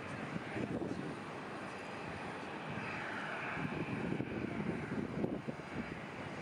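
Airliner jet engines running, a steady rush with a low rumble that swells slightly in the middle.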